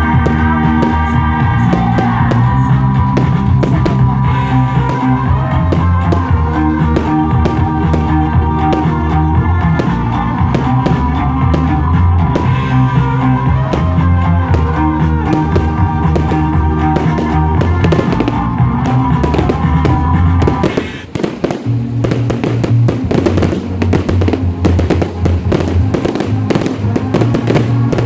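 Fireworks going off in many sharp bangs over loud rock music with guitar. The music dips briefly about three-quarters of the way through while the bangs keep coming, thicker afterwards.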